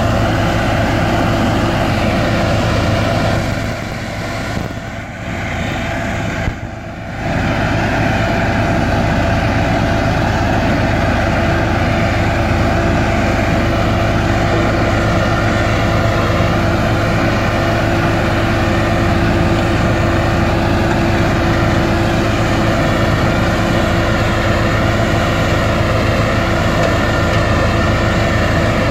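Diesel engine of an SDLG RS8200 single-drum road roller running steadily under work. The sound drops for a few seconds about four seconds in, then comes back up.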